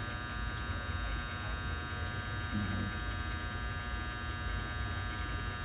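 Steady electrical hum made up of many fixed tones over a low rumble, with a few faint sharp ticks scattered through it.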